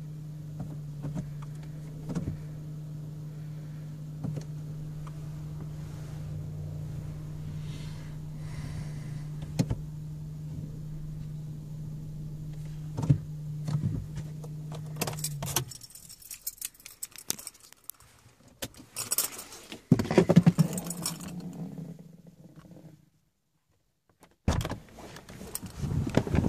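A steady low hum inside a car with occasional clicks, stopping abruptly about sixteen seconds in. Then keys jangle and clatter in bursts, with a brief complete dropout near the end.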